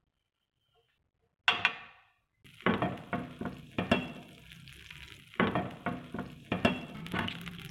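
Butter sizzling as it melts in a hot non-stick grill pan, starting suddenly about a second and a half in. A spoon scrapes and taps against the pan about once a second as the butter is spread.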